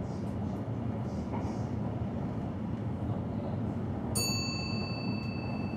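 Electric train rumbling along the track, heard from inside the driver's cab. About four seconds in, a cab bell strikes once and rings on, its higher partials dying away first while a lower tone keeps sounding.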